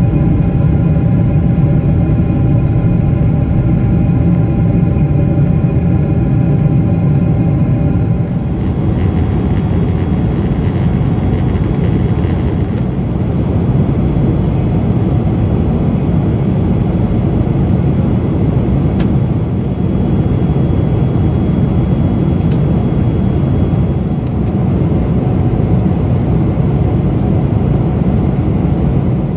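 Airbus A350-1000 cabin noise while climbing after take-off: the steady noise of the jet engines and the airflow. For the first several seconds a few steady engine tones ride over it; about eight seconds in it changes to a plain, even rush.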